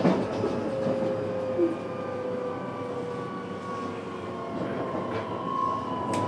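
Inside a JR West 321 series electric multiple unit's motor car, the train running along the track: a steady rail rumble with a thin whine from the traction motors that sags slightly in pitch. A single sharp click comes near the end.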